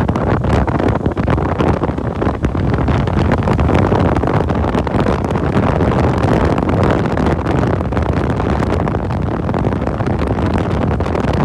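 Wind buffeting the microphone of a moving motorcycle, with the bike's running noise underneath and many short knocks. The sound is loud and steady throughout.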